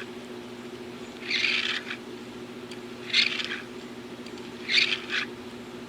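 Hot Wheels die-cast car's wheels pushed across wet 1500-grit sandpaper: three short sanding strokes, about one every second and a half.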